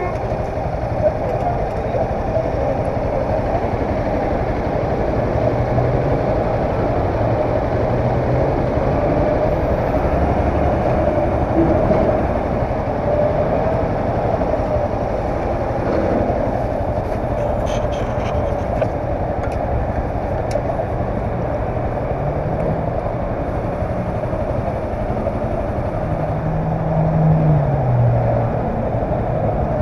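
Honda CBR300R's single-cylinder engine idling steadily, with a short rev that rises and falls in pitch near the end.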